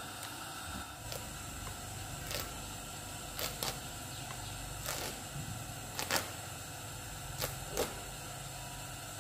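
Scattered light clicks and ticks, about seven over several seconds, from handling cloth at a sewing table, over a steady low hum.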